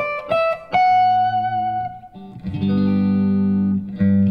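Electric guitar playing the last notes of an ascending Locrian-mode scale run and holding a high note. Two sustained chords follow, the second struck near the end.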